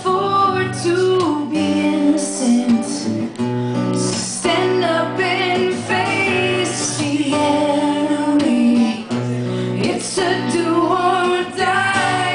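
Live acoustic music: two acoustic guitars played under singing, with long held sung notes.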